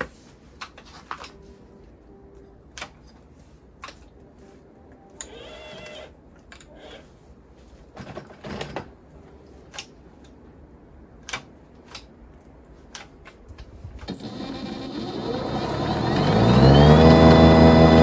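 A few faint clicks and taps, then about fourteen seconds in the electric motor of an 80V battery-powered dual-stage snowblower starts and spins up with a rising whine, settling into a loud steady hum near the end.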